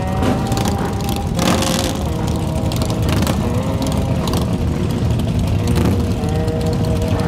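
A crowd of Harley-Davidson V-twin motorcycles idling together, with engines blipped now and then, one of them sharply about a second and a half in. Music with slow held notes plays over the engines.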